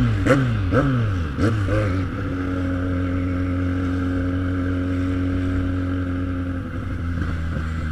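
Inline-four sport motorcycle engine revved in about five quick throttle blips, each rising and falling in pitch. It then runs at a steady, even pitch, easing off slightly near the end.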